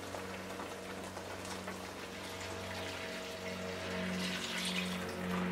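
Water poured from a blender jar into a pan of tomato sauce, splashing, a little louder in the second half.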